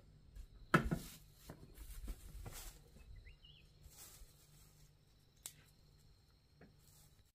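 A hoe chopping into and scraping through loose garden soil. The sharpest strike comes about a second in, followed by a couple of seconds of scraping and two lighter knocks near the end. A bird chirps once briefly.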